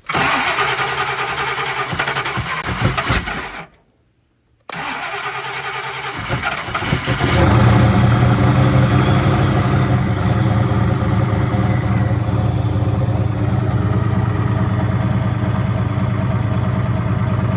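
Turbocharged 383 stroker small-block Ford V8 being cranked by its starter on a cold start: cranking for a few seconds, a break of about a second, more cranking, then it catches at about seven seconds and settles into a steady idle. The rocker tapping is gone, leaving a couple of exhaust leaks.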